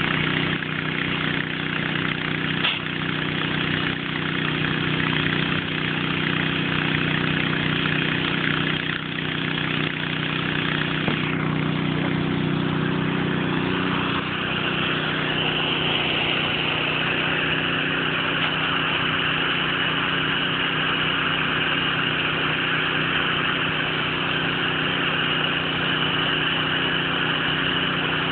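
A small engine runs steadily under the hiss of a high-pressure water jet spraying across grass. About halfway through, the hiss grows louder and brighter.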